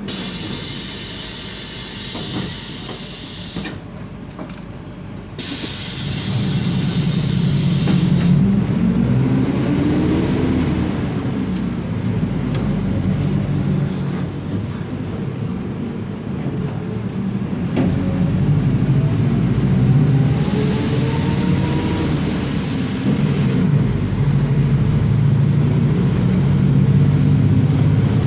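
Mercedes-Benz OF-1721 Bluetec 5 city bus pulling away and accelerating at high revs: the diesel's note climbs and drops back several times through the gear changes. A thin whine from the differential rises with speed about two-thirds of the way in. Bursts of hiss come at the start and again near that whine.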